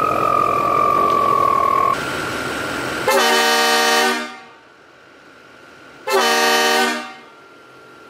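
Kleinn train horns, fed by an onboard air system, blasting twice: two loud, chord-like blasts of about a second each, about three seconds apart, each ringing out briefly under the concrete bridge. Before them, a single tone gliding down over a rushing noise ends abruptly about two seconds in.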